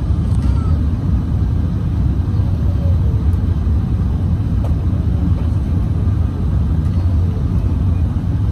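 Airbus A380 cabin noise in the climb: a steady low rumble of engines and airflow heard from a window seat inside the passenger cabin.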